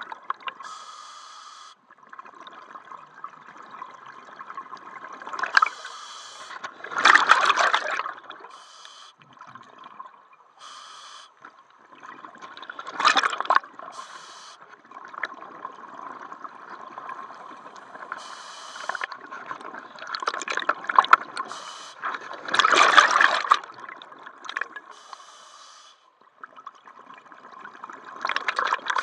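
Scuba diver breathing through a regulator underwater: short hissing inhalations, each followed by a louder gurgling rush of exhaled bubbles, about every six to ten seconds.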